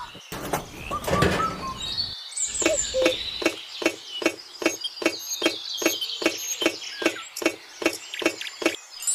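A steady run of sharp knocks, about three a second, starts about two seconds in and stops near the end, after a couple of separate knocks. Birds chirp over it.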